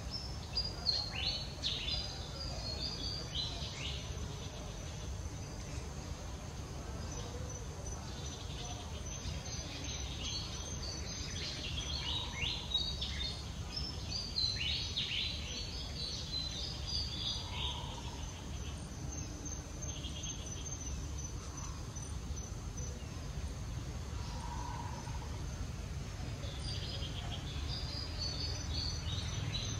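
Outdoor ambience: insects keep up a steady, high, thin drone, and short chirping calls come in bursts near the start, in the middle and near the end, over a low steady rumble.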